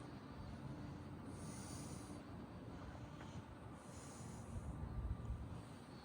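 Faint wind rumbling on the microphone, with soft breaths close to it coming about every two and a half seconds.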